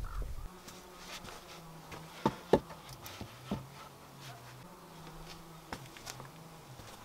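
A flying insect buzzing near the microphone, its faint low hum wavering slightly in pitch, with a few sharp knocks of wood being handled, the loudest two close together just over two seconds in.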